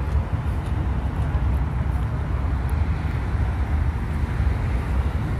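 Wind buffeting the phone microphone outdoors, a steady low rumble over faint background noise.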